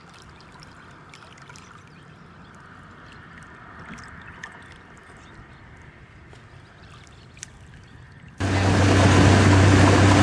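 Faint water noise with occasional small ticks, then about eight seconds in a sudden jump to a motorboat's engine running steadily at speed under a loud rushing noise.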